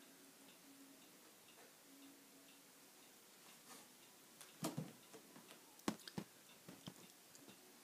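A quiet room broken by a cluster of soft knocks and scratchy clicks a little past halfway: Siberian cats' paws and claws scuffling on a carpet-covered cat house as they play-fight.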